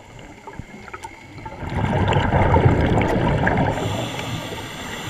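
Underwater, a scuba diver's exhaled bubbles from the regulator rush and gurgle past the camera housing for about two seconds, starting about a second and a half in, then fade to a softer bubbling over a steady underwater hiss.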